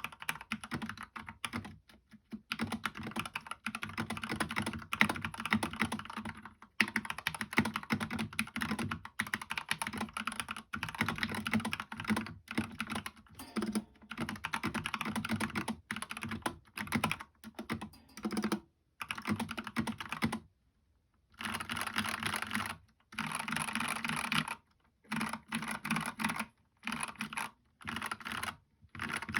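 Mechanical keyboard with lubed Gateron Yellow linear switches on an aluminium plate in a plastic GK64 case, being typed on in quick bursts of keystrokes, with short pauses and one brief stop a little after the middle.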